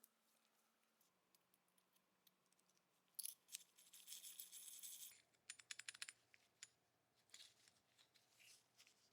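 Faint hand-work sounds on small parts: scattered light clicks and taps, with a short scratchy scrubbing sound about three seconds in lasting under two seconds.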